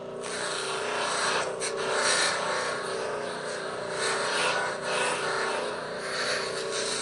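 Abrasive deburring wheel spinning with a steady hum while a steel part's rough bandsaw-cut edge is pressed against it, a hissing grind that swells and eases as the part is worked.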